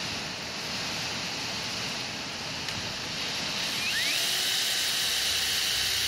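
Cordless drill running, boring a rivet hole through a gusset plate into one wall of an aluminium tube. About four seconds in the motor whine rises in pitch and holds as the drill speeds up.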